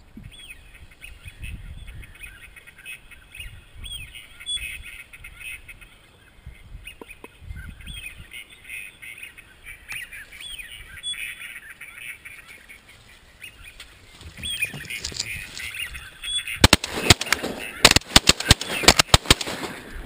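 Ducks calling over and over. Near the end comes a rapid volley of many shotgun shots fired close together, the loudest sound.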